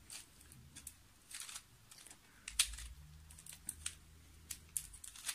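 Plastic gears of a 2x2x2 Gear Cube clicking and rattling as a layer is turned by hand: a run of soft, irregular clicks, several close together about one and a half seconds in.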